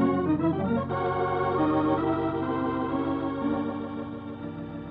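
Organ music bridge marking a scene change in a radio drama: sustained chords that shift a few times and grow quieter toward the end.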